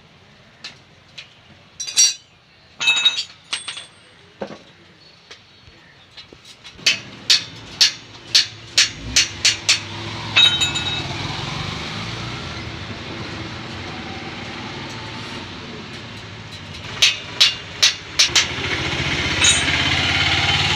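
Sharp metallic knocks with a ringing after them, as from hammering on bicycle parts: a few scattered strikes, then a steady run of about two a second for several seconds, and another short run near the end. Between the runs a steady rumbling noise rises and fades.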